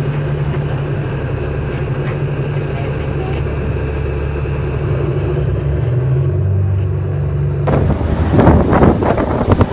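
A tugboat's diesel engine running steadily under wind and sea noise, its note shifting lower about five and a half seconds in. Near the end the sound cuts to loud, gusty wind buffeting the microphone and sea water washing across a ship's deck.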